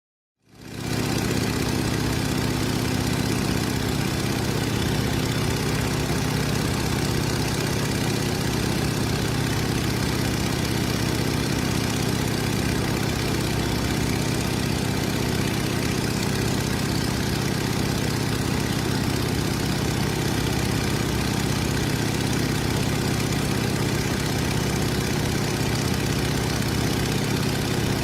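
Stearman biplane's radial engine and propeller running steadily in flight, heard from the open cockpit, with a steady rush of air over the engine hum. The sound fades in within the first second.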